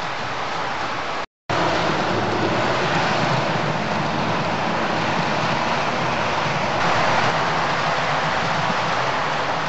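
Model train running on the layout's track, its wheels and motor making a steady rushing rattle, with a brief break about a second in.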